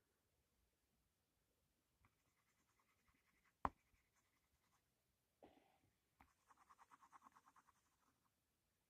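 Faint scratching of a coloured pencil shading on paper, in quick back-and-forth strokes about six or seven a second. There is a single sharp click near the middle and a softer knock a couple of seconds later.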